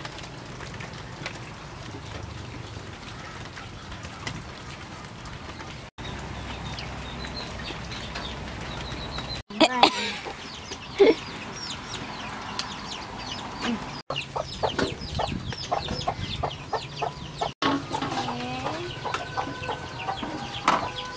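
Chickens clucking and calling in quick runs of short notes over a steady outdoor background hiss. The sound drops out for an instant four times.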